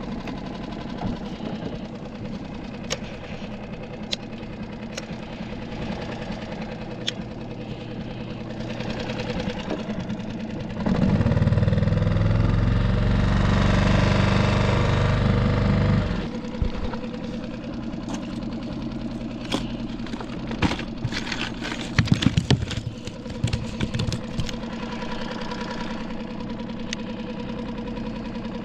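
Small skiff's outboard motor running at low trolling speed, much louder for about five seconds near the middle. A cluster of sharp knocks and clicks follows a few seconds later.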